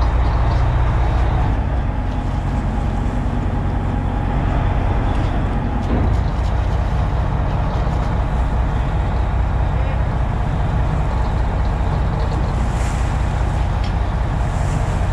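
Charter boat's engine running steadily with a low, even hum, and water washing along the hull.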